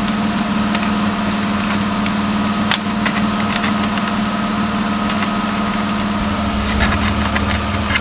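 BMW E36 engine idling steadily, heard from inside the cabin, with one light click about three seconds in. The engine has just been started and is warming up after the car sat unused for a while.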